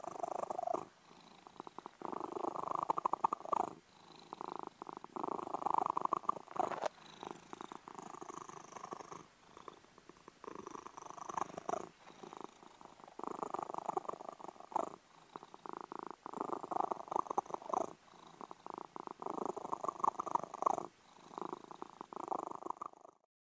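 Domestic cat purring close to the microphone, in stretches of a second or two with short breaks between breaths.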